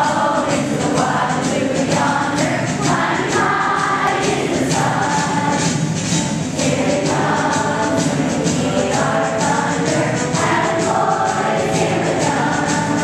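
A group of children singing together in unison, like a choir.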